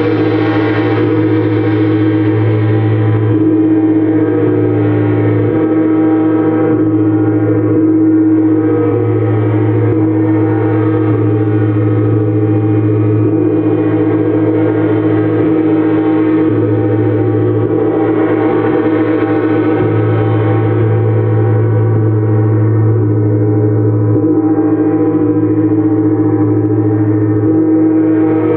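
Gongs played without a break, a continuous wash of many sustained overlapping tones, the deep hum swelling and easing every few seconds.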